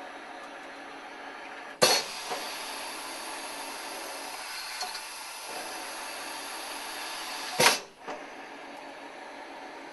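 Axminster iKX3 CNC mill's 12-tool automatic tool changer cycling. A sharp clunk about two seconds in starts a louder steady rushing, mechanical noise, which ends with another loud clunk near eight seconds, over a steady machine hum.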